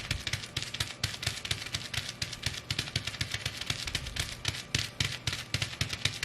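Bubble wrap being stomped and crushed under sheepskin boots: a dense run of sharp pops and crackles over dull low thuds from the steps.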